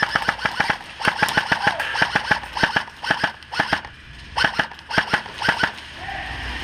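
Airsoft guns firing rapid full-auto bursts of sharp snaps, several bursts in a row with short pauses about a second in and about four seconds in.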